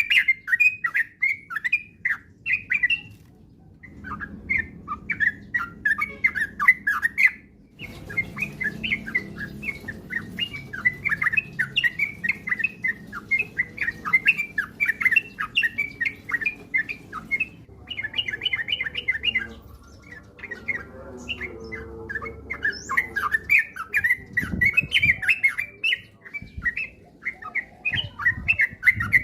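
Yellow-vented bulbul (trucukan) singing its fast, bubbly chattering song, note after note in quick runs, with brief pauses about three seconds in and again around the middle.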